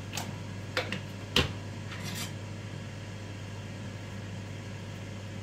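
A table knife clinking and knocking against a plate of toasted crumpets a few times, the loudest knock about one and a half seconds in and a short scrape just after, over a steady low hum.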